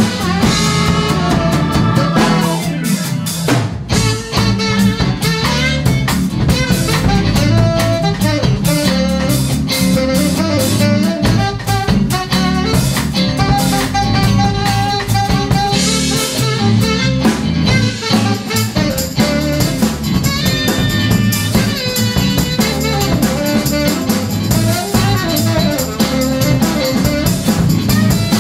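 Live band playing an instrumental groove: tenor saxophone, electric guitar, electric bass and drum kit, with no vocals.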